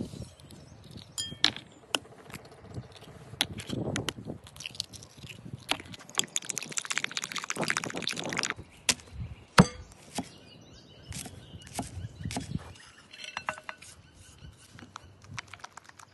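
Eggs beaten in a glass bowl with a wooden-handled utensil: sharp clinks and taps against the glass, with a stretch of fast whisking strokes around the middle and one louder knock on the bowl just after. Near the end, lighter stirring and tapping as chopped green onion is mixed into the egg.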